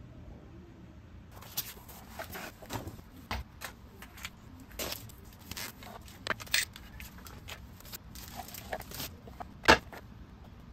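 Handling noise from unpacking a flat-pack shelf kit: packaging and paper rustling and crinkling, with many small clattering knocks of the parts. It starts about a second in, and there is one sharp, louder click near the end.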